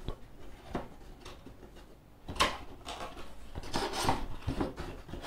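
Corrugated cardboard packaging being handled by hand: rubbing and scraping with scattered knocks, the sharpest about two and a half seconds in and a cluster around four seconds.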